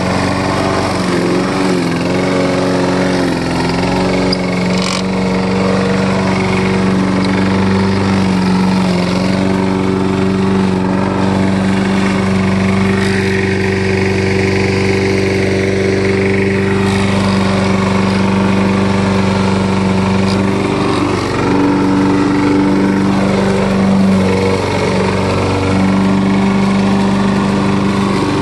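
Walk-behind gas lawn mower's small single-cylinder engine running at a steady speed as it mows through thick clumps of grassy plants, the pitch dipping briefly under load a couple of times.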